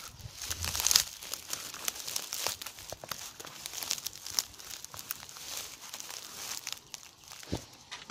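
Dry grass and hay rustling and crackling as a dog roots through it with its head inside a rusty metal container, in quick irregular bursts. A single dull knock comes near the end.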